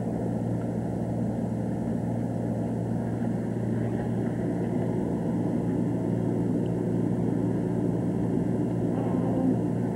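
Steady low mechanical hum with a hiss behind it.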